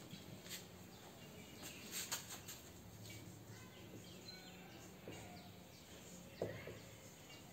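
Faint marker-on-whiteboard writing sounds, a few light scratches and clicks, with small birds chirping faintly in the background and one sharp tap about six seconds in.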